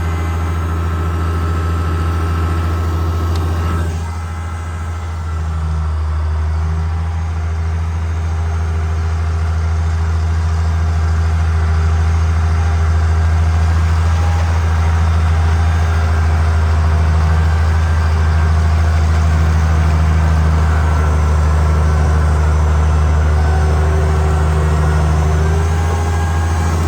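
International Harvester 856 tractor engine running steadily. It eases off briefly about four seconds in, then runs a little louder.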